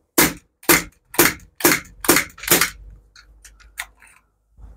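BB air pistol firing six quick shots at a breeze block, about two a second, followed by a few faint clicks.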